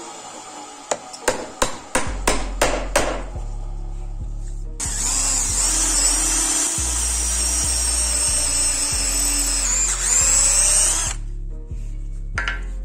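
Electric drill running and boring a hole into a wooden block for about six seconds in the middle, over background music with a steady bass line. Before the drilling there is a quick run of about seven sharp knocks.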